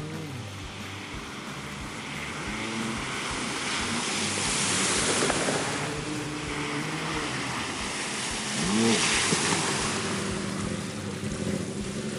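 Jeep Wrangler off-roader engines revving up and down as they drive through shallow water, over a steady rush of water and splashing from the tyres. The loudest moment is a rising rev about nine seconds in.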